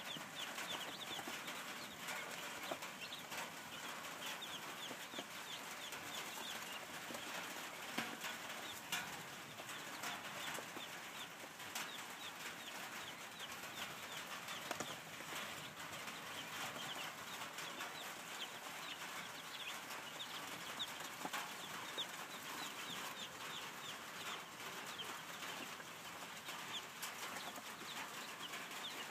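A brood of young chicks peeping without pause, many short high cheeps overlapping one another, with a few sharp clicks here and there.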